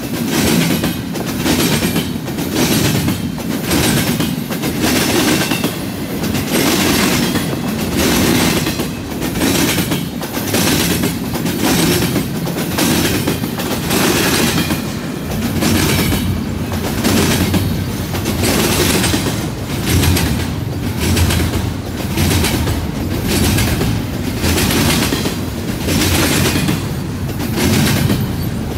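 Double-stack intermodal freight train of articulated well cars rolling past close by, its wheels clacking in a steady rhythm over the track and a junction switch.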